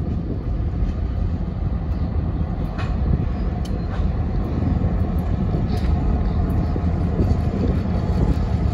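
Southwest Pennsylvania Railroad diesel locomotives rumbling steadily as they approach, growing slightly louder, with a few faint high ticks over the engine noise.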